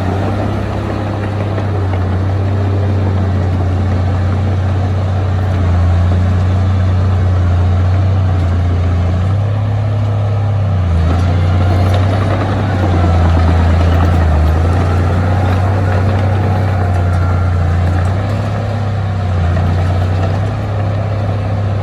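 Heavy diesel engine of earthmoving machinery running, a steady low drone that swells and eases a little every few seconds as it works.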